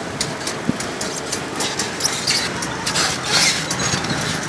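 Busy street ambience: steady traffic noise with frequent short clicks and clatter, swelling briefly a little past three seconds in.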